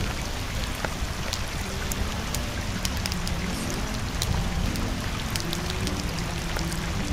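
Steady rain-like hiss with scattered crackles, over faint music with held low notes.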